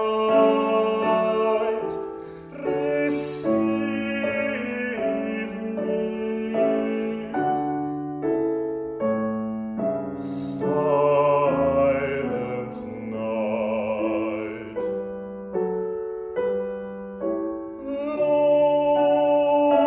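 Male classical singer with grand piano accompaniment: sung phrases with vibrato over the piano's repeated chords.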